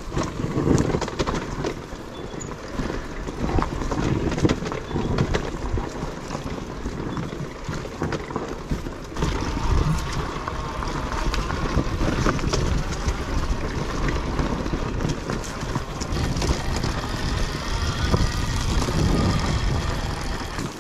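Yamaha WR450F single-cylinder four-stroke dirt bike engine running on a trail, with wind buffeting the microphone and scattered knocks.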